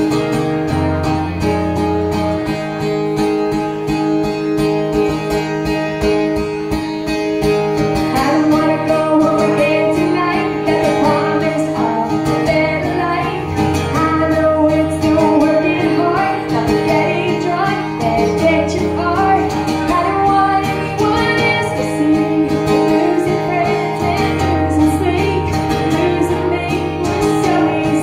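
Live solo acoustic performance: an acoustic guitar played by a woman who sings along into a microphone.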